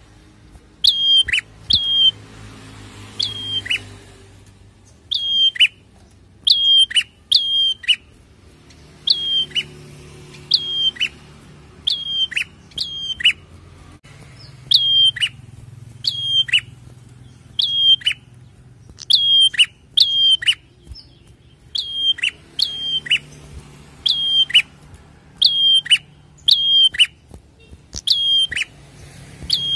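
A caged prenjak calling loudly: sharp, clipped notes that drop in pitch, repeated in quick runs of two or three every second or two.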